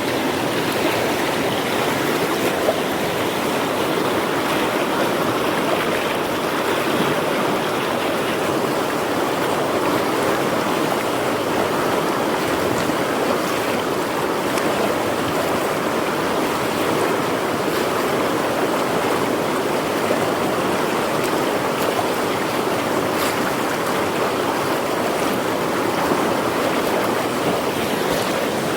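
Fast-flowing river water rushing steadily, a rainy-season flow coming down out of the forest.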